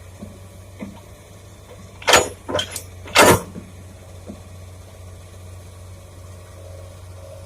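Heavy diesel engine running steadily at a low idle, broken by four loud, short crashing bursts between about two and three and a half seconds in.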